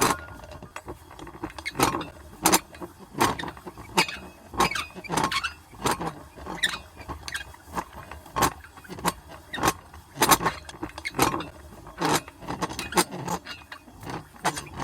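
Old metal hand-crank wheel being turned, its iron parts clanking in sharp, uneven strikes about once or twice a second, with a light rattle between them.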